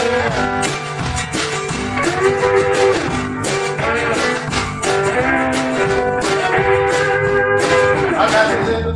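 Live country band playing an instrumental passage: bowed fiddle, strummed acoustic guitar, electric guitars and a drum kit keeping a steady beat.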